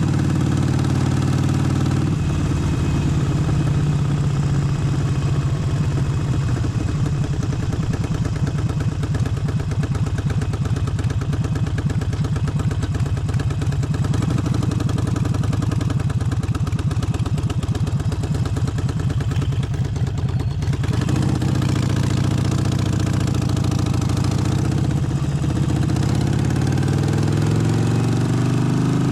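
Harley-Davidson Forty-Eight's air-cooled 1200 cc V-twin running steadily. Its note changes about two seconds in and again about two-thirds through, then rises in pitch near the end as the engine picks up revs.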